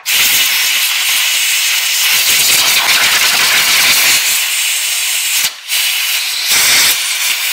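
Compressed-air blow gun blasting air over the engine's coil boots and spark plug wells to clear out dirt: a loud, steady hiss that lets off for a moment about five and a half seconds in, then resumes.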